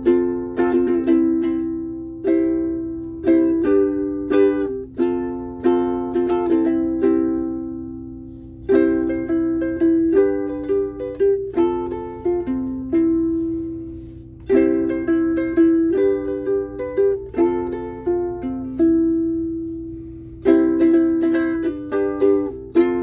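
Soprano ukulele built from a soft-wood DIY kit and strung with Aquila Nylgut strings, played solo: phrases of strummed chords and picked notes, with a few chords left to ring out and fade between phrases.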